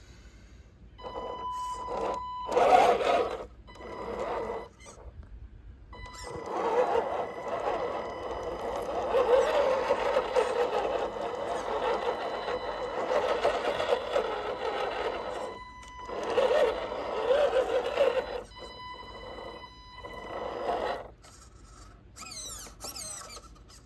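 Electric motor and gear drivetrain of an RC Toyota pickup crawler whining in bursts of throttle as it drives through mud. It stops briefly a few times, and a thin high steady whine sits underneath.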